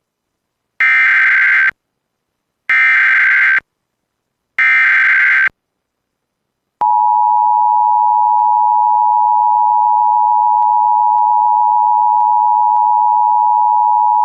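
Emergency Alert System alert opening: three short bursts of screeching digital header data about two seconds apart, then, about seven seconds in, the steady two-tone EAS attention signal starts and holds.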